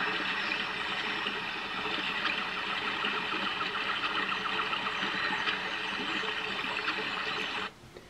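Sound Oasis BST-80 sleep sound machine playing one of its recorded sleep sounds through its small speaker: a steady hiss with a faint rapid ticking in it partway through. It cuts off suddenly near the end.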